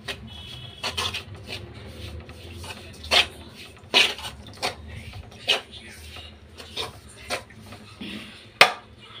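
A hand rubs and works a crumbly wheat-flour mixture in a steel bowl, with irregular sharp clicks and knocks against the bowl. The loudest knock comes near the end.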